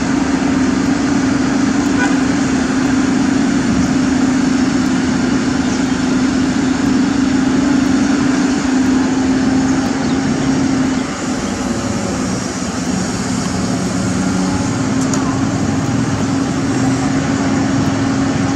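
Caterpillar 320D excavator's diesel engine running steadily under work. Its pitch drops about eleven seconds in and comes back up a few seconds later.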